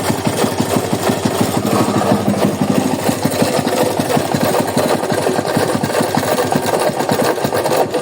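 Honda Today motorcycle's single-cylinder engine running steadily with a rapid, rattly knocking noise, then switched off at the very end. The mechanic traces the noise to worn crankshaft main bearings.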